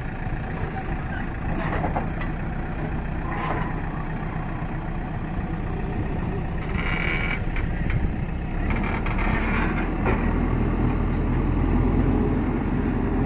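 JCB backhoe loader's diesel engine running under load as its front loader bucket pushes against the front of a truck, getting somewhat louder in the second half.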